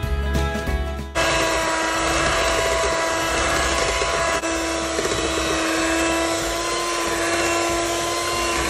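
Electric hand mixer running with its twin beaters in cake batter: a steady motor hum that cuts in about a second in, its pitch stepping up slightly about halfway through.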